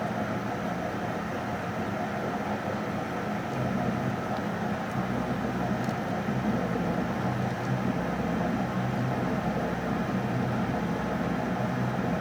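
Metal lathe running steadily, its motor and spindle giving a constant hum; the sound gets a little louder and deeper about five seconds in.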